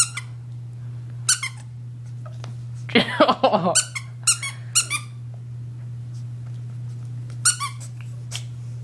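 Rubber squeaky toy squeaking as a puppy bites at it: one long squeak about three seconds in, with several short squeaks before and after.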